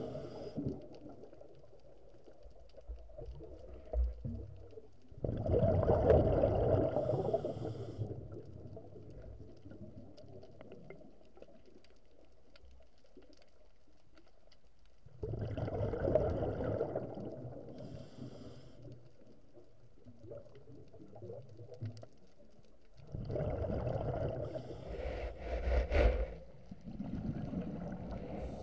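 Scuba diver breathing through a regulator, heard through the underwater camera's housing: three long exhalations of bubbles, each about three seconds, some eight to ten seconds apart, with quieter stretches of inhaling between.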